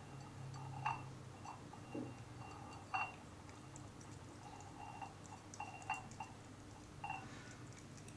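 A cat eating from a cut-glass bowl, its paw and mouth knocking the glass: irregular light clinks a second or two apart, each ringing briefly, with fainter ticks in between.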